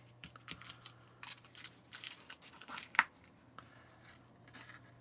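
Light crackling and rustling of a thin plastic candy-kit tray being handled while crumbly waffle dough is picked out and pressed together by hand, with one sharp click about three seconds in.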